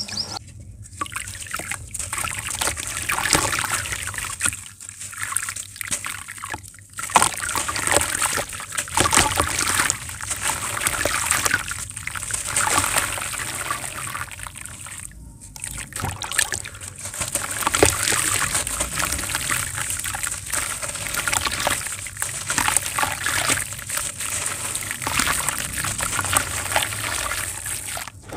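Hands sloshing and squeezing lumps of wet white sand in a basin of water, the crumbling sand trickling and splashing back into the water, with a few brief breaks.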